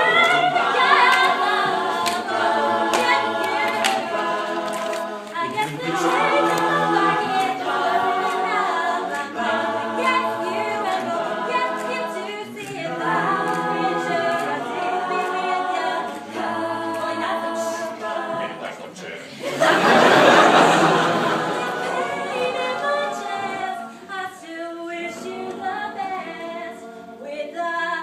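A cappella vocal group singing sustained chords in close harmony with no instruments. About twenty seconds in, a loud burst of noise lasting about two seconds cuts across the singing, after which the harmony carries on more softly.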